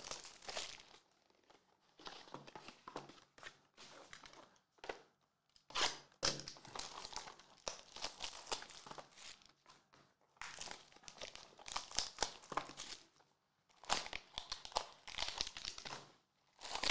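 Plastic shrink-wrap crinkling and tearing as it is stripped off a sealed trading-card box, then crinkling of foil-wrapped card packs being handled, in irregular bursts with short pauses between.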